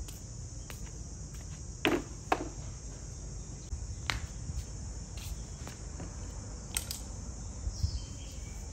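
A rusty plastic radio cassette player set down on concrete: two knocks about half a second apart, followed by a few lighter knocks and sandal steps, over a steady high insect drone.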